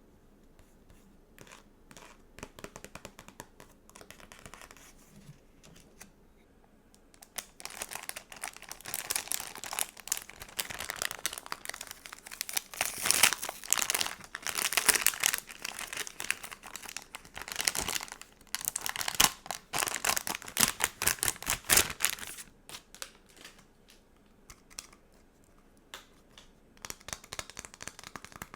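Sticker sheets being handled and peeled, crinkling. Light scattered ticks and rustles at first, then a long, dense run of crackling from about seven seconds in until about twenty-two seconds, then scattered again.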